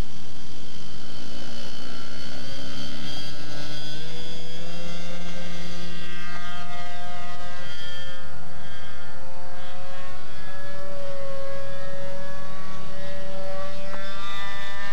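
Super Tigre 90 two-stroke glow engine of an RC model plane running at full throttle on the takeoff run. Its pitch rises over the first few seconds, then holds as a steady high drone that shifts slightly in pitch as the plane climbs and flies by.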